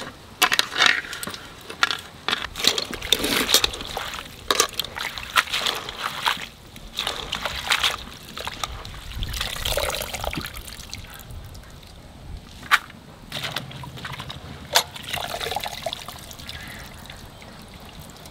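Hands swishing shredded cabbage around in a steel pot of water, with irregular splashing and sloshing. Near the end, handfuls are squeezed and lifted out, and water dribbles back into the pot. Two sharp knocks stand out in the second half.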